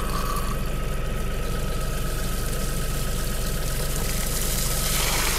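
LS MT342 tractor's diesel engine idling steadily, with water gushing out of the bottom valve of a full IBC tote as a rushing hiss that grows louder near the end.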